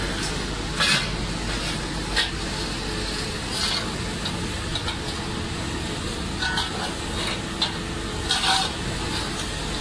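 Aluminium dross recovery machine running with a steady hum, its stirring paddle working hot dross in the steel pan and giving short, irregular scrapes and clinks.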